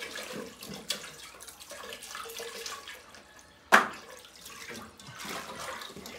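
Water running and splashing, with small clatters throughout. One sharp, loud knock comes a little past halfway.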